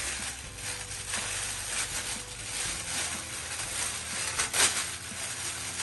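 Thin plastic packaging bag crinkling and rustling as it is pulled open and handled, with a sharper, louder crackle a little over four and a half seconds in.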